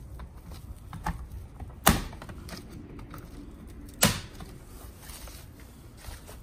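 Plastic clips of an RTR hood vent's back plate popping free as it is pried apart by hand: two sharp snaps about two seconds apart, with a fainter click about a second in.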